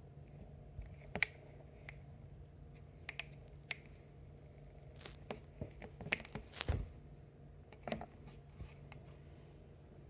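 Scattered light taps and clicks, irregular and strongest around the middle, over a steady low hum.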